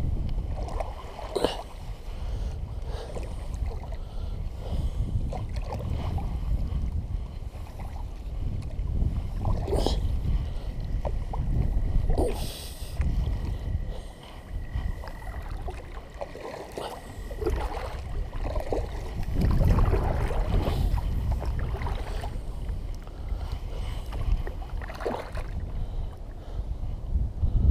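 Wind noise on the microphone over water lapping against a plastic kayak hull, with a few scattered splashes from paddle strokes.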